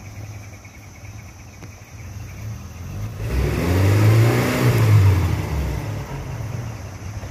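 Nissan Patrol Y61 engine running under load in wet sand, revved hard about three seconds in: the pitch climbs and then falls over about two seconds, with a broad hiss over it, before the engine settles back to a lower, steadier note.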